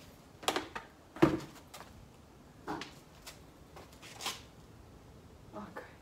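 Gardening work by hand: a handful of irregular short knocks and scrapes as tools, pot or soil are handled, the loudest about a second in.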